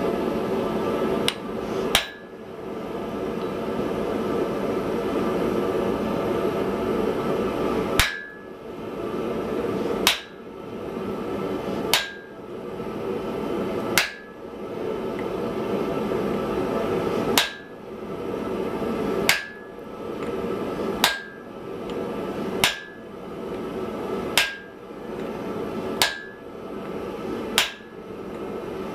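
Hammer blows forging a red-hot wrought-iron block on an anvil, struck about once every two seconds. Each strike gives a sharp clank with a short metallic ring. A steady rushing noise runs underneath, and there is a pause of about six seconds without strikes soon after the start.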